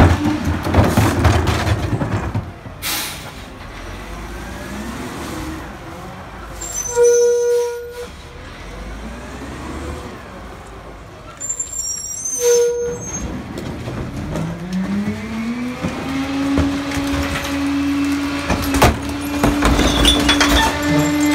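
Pak-Mor rear-loader garbage truck running, with loud mechanical clatter at first and two short sharp air-brake hisses about seven and twelve seconds in. Then the engine revs up and holds a steady higher pitch as the cart tipper's hydraulics lift a recycling cart.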